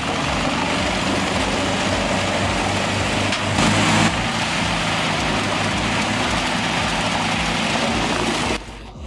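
Heavy machine engine running steadily under a dense rushing noise, swelling louder for about half a second midway and cutting off sharply near the end.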